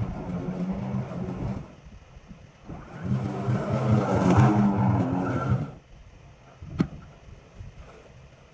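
EGO battery lawn mower running as it cuts tall wet buffalo grass, a steady motor-and-blade hum that dips briefly and comes back as the mower nears. It stops a little before six seconds in, followed by a single sharp click.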